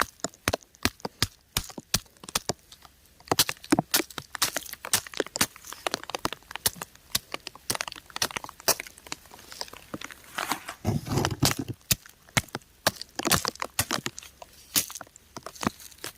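Raindrops striking crumbling rock close by: irregular sharp ticks and taps, several a second, with a duller thud about eleven seconds in.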